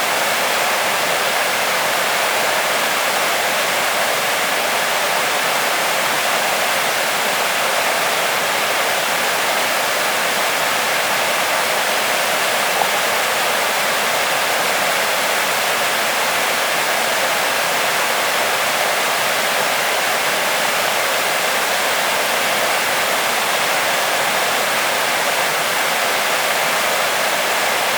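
Waterfall, its water falling in a steady, unbroken rush.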